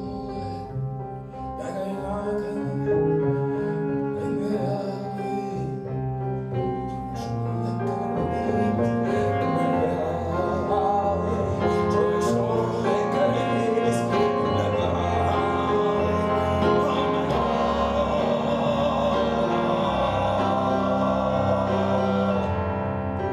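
Background music that grows fuller partway through and fades right at the end.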